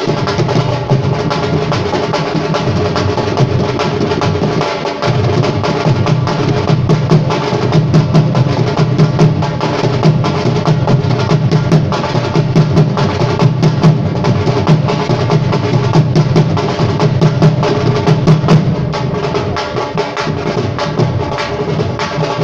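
Live music: fast, dense drumming over a steady melodic instrument.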